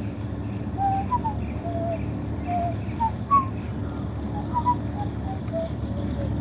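Scattered short bird calls at varying pitches over the steady low hum of a truck engine.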